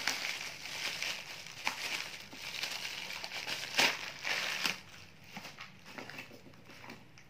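Thin plastic bag crinkling and crackling as it is pulled and peeled off a cardboard parcel, with sharp crackles, the loudest about four seconds in. After about five seconds it goes quieter, leaving a few light taps as the bare box is handled.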